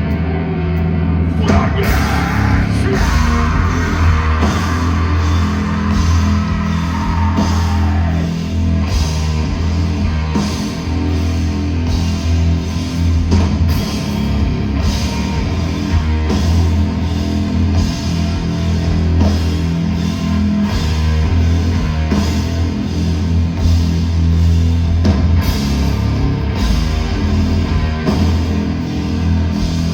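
Metalcore band playing live: loud distorted guitars and bass over heavy drums with repeated cymbal crashes, with some vocals.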